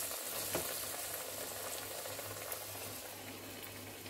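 A lentil vada (chana and toor dal fritter) frying in hot oil in a kadai, freshly dropped in: a steady sizzle that slowly dies down.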